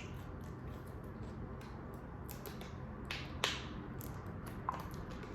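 A few sharp, wet mouth clicks and smacks from eating or drinking, the loudest two about three seconds in, over a low steady background.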